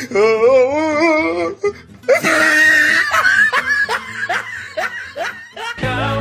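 Hearty laughter in repeated bursts, with a wavering, shaky pitch at first and a high shriek-like laugh a couple of seconds in. Background music comes in near the end.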